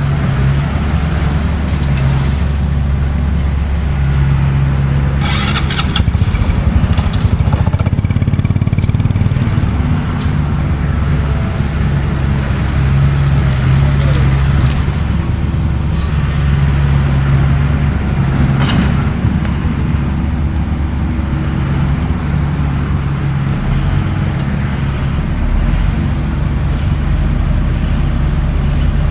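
Bulldozer's diesel engine running steadily under load, with a few short sharp noises about five to seven seconds in.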